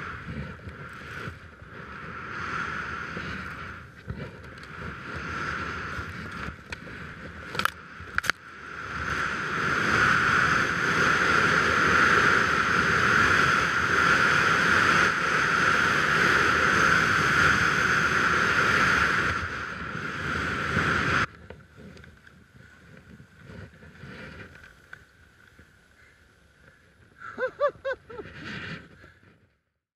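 Wind rushing over an action camera's microphone and skis hissing through powder snow during a fast downhill run. It is loudest in the middle and cuts off suddenly about two-thirds of the way through. After that it is much quieter, with a few short sounds near the end.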